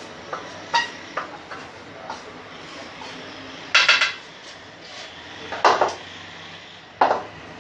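A spoon clinking and knocking against a mixing bowl while stirring a dry mix of cornflour, flour and spices, in scattered taps with louder quick clusters about four, six and seven seconds in.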